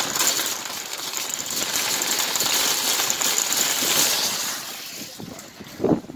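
Wire shopping cart rattling and clattering as it rolls over a concrete parking lot. The noise fades after about four seconds, and a single short thump comes near the end.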